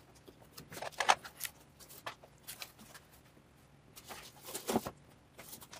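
Handling noises: a handful of short rustles and light taps as hands work an adhesive heating band and its thermostat around a plastic resin printer vat, the loudest shortly before the end.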